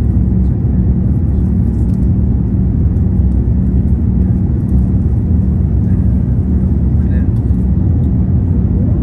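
Steady cabin roar of an Airbus A350-900 climbing after takeoff: its Rolls-Royce Trent XWB engines at climb power and the rush of air past the fuselage, a deep even rumble with a steady low hum.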